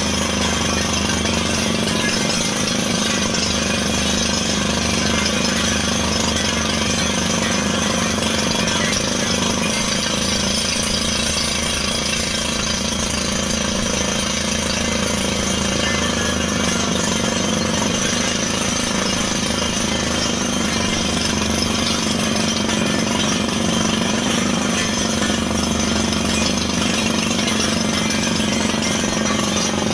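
Truck-mounted water well drilling rig running: a steady, unbroken mix of engine hum and dense, rapid mechanical rattle, with no pauses.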